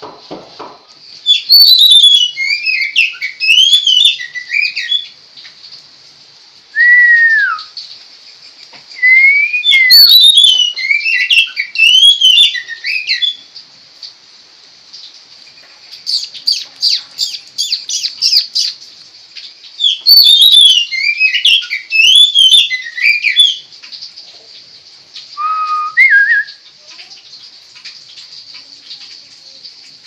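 Oriental magpie-robin (kacer) singing loud, varied whistled phrases of quick rising and falling notes, in about six bursts with short pauses between them. These include a single slurred whistle falling in pitch and, near the middle, a fast run of repeated sharp notes. A steady faint high hiss lies underneath.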